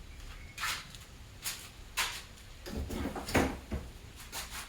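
A run of short clatters and scrapes from handling loose metal parts and tools, with a cluster of louder knocks about three seconds in.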